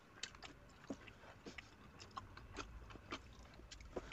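Faint eating sounds: scattered small clicks and smacks of someone chewing food eaten with the fingers.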